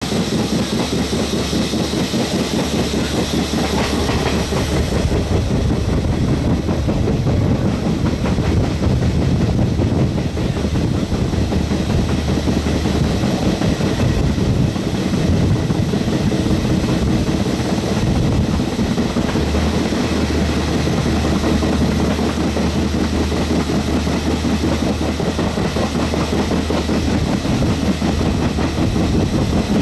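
Passenger carriage of the CT273 steam train running along the line, heard at an open window: a steady rumble of wheels on the rails with clickety-clack.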